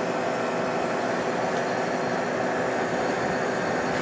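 Aegis Scientific refrigerator/freezer's refrigeration machinery running: a steady whirring hum of compressors and condenser fans with a few steady tones in it.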